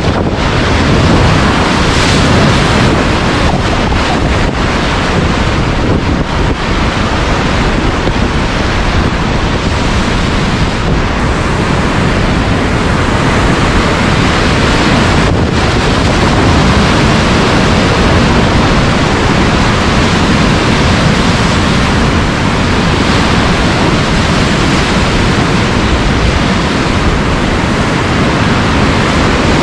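Steady roar of whitewater river rapids, with a few brief sharper splashes as waves break over the raft's pontoons.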